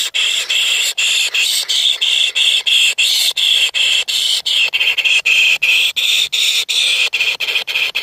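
Nestlings begging in the nest: a loud, shrill, squealing call kept up without a break, pulsing about three to four times a second.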